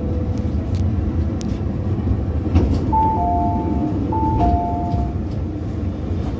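Two-note door chime of an MTR South Island Line S-Train sounding twice, high then low, as the doors close, over the train's steady low hum and a few light clicks.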